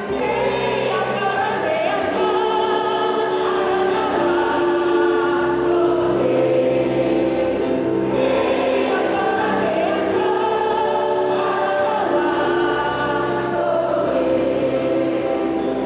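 A choir singing, holding long sustained chords.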